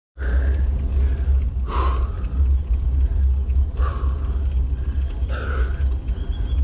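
Wind rumbling steadily on the microphone of a camera riding on a road bike, with the filming cyclist's heavy breaths three times, about every two seconds, as he climbs.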